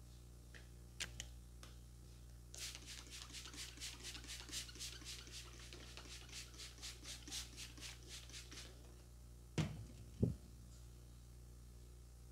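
Trigger spray bottle misting, about twenty quick hissing spritzes in a steady rhythm of three to four a second, followed near the end by two dull thumps, the loudest sounds in the stretch.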